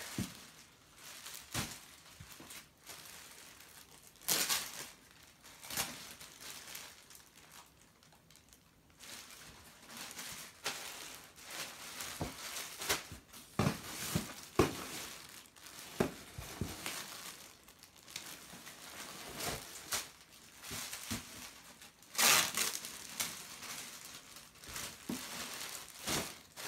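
Plastic polybags crinkling as packaged tracksuits are lifted out of a cardboard box and handled, in irregular rustling bursts, with a loud one about four seconds in and the loudest near the end.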